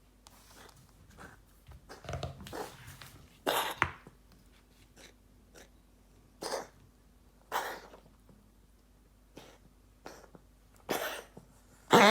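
A pet animal coughing in a series of short, separate coughs a second or more apart, the loudest near the end.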